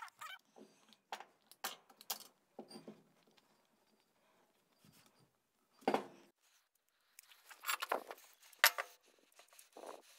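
Hands handling bicycle inner tube rubber on a metal bandsaw wheel as it is fitted as a tyre: scattered rubbing, light knocks and clicks. There is a louder knock about six seconds in and a run of sharper clicks shortly after.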